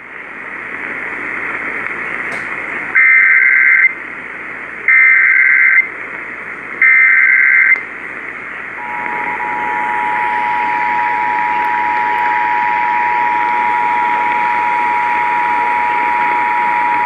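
Emergency Alert System alert heard over radio hiss: three short bursts of the digital SAME header, each about a second long and a second apart, carrying the coded flash flood warning. About nine seconds in, the steady two-tone EAS attention signal begins and holds.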